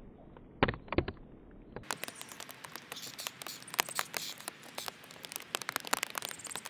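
Birds at a backyard feeder snacking: a rapid, irregular patter of sharp clicks and taps, with two louder knocks about half a second and a second in.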